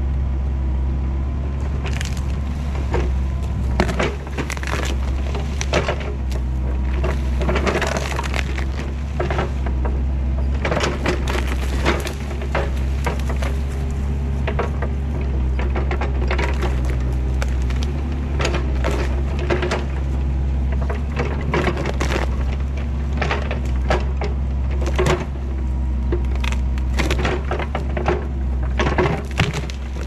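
Kubota KX121-3 compact excavator's diesel engine running steadily, with repeated cracks and snaps of wood and roots breaking as it knocks the dirt off and pulls out a blown-down pine stump.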